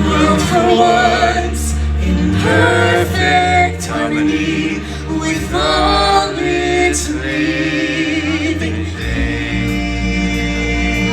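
Stage-show music: a choir of voices singing long wavering notes over a steady bass accompaniment.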